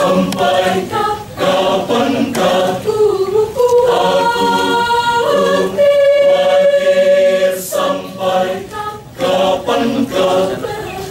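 Church choir singing, holding a long sustained chord through the middle before moving on in shorter notes.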